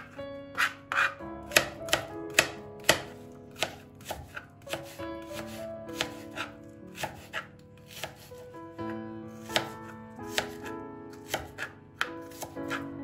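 Kitchen knife dicing an onion on a plastic cutting board: sharp taps of the blade striking the board, about two a second and slightly irregular.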